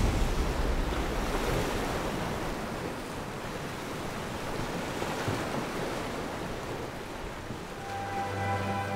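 Sea surf washing in, a steady rushing hiss that slowly eases off, with sustained string notes coming in near the end.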